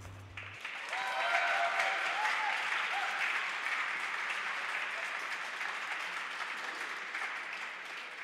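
Spectators applauding in an ice rink at the end of a figure skating program, just after the program music cuts off about half a second in. The clapping is loudest in the first couple of seconds, then slowly dies down.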